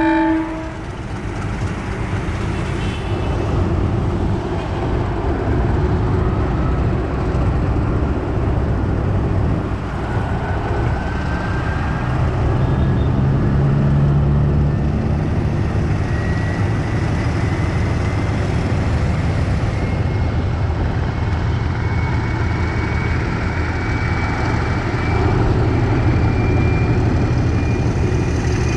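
Class M6 diesel locomotive engine running under load as it hauls the train slowly away, a steady heavy engine sound with a faint whine rising slowly in pitch. The end of a horn blast cuts off right at the start.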